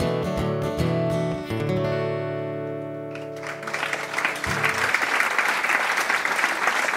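Acoustic guitar playing the closing notes of a folk song, ending on a chord left to ring out. About three seconds in, the audience breaks into applause, which continues as the chord fades.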